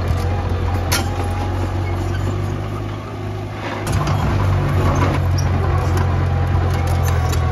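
Diesel engine of heavy earthmoving equipment running steadily under load, easing off briefly about three seconds in and picking back up about a second later, with a sharp metallic clank about a second in.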